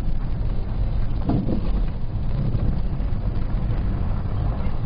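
Car driving down a dirt road, heard from inside: a steady low rumble of engine and tyres on the unpaved surface.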